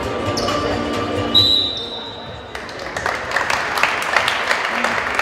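Music over the sports hall's loudspeakers stops about a second and a half in. From about halfway, a dense, irregular patter of sharp claps and knocks with crowd chatter echoes in the large hall.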